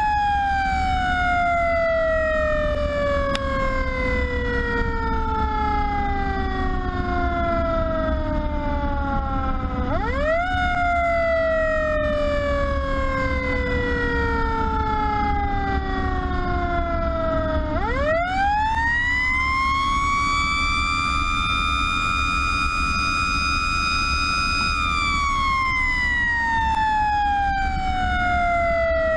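Fire truck siren sounding during an emergency response, its pitch sliding in long slow sweeps. It falls for about ten seconds, jumps up briefly and falls again, then rises sharply about eighteen seconds in, holds high for several seconds and winds down. Under it runs a steady low drone of the truck's engine and road noise.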